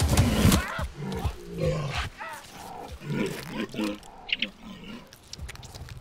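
Drum-heavy film music that cuts off about half a second in, followed by a string of creature growls and grunts that rise and fall in pitch.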